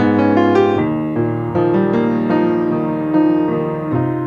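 Piano music without singing, the notes and chords changing about twice a second.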